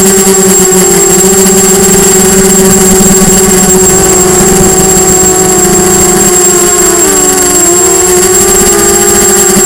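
Diatone Blade 250 quadcopter's motors and propellers, heard loud and close from the camera mounted on the drone: a steady buzzing whine with a thin high tone above it. About seven seconds in, the pitch wobbles and dips briefly before steadying.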